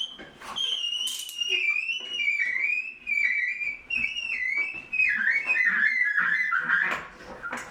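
A dog whining: a long, high, wavering whine that slowly drops in pitch, broken by short gaps, with a few light knocks behind it.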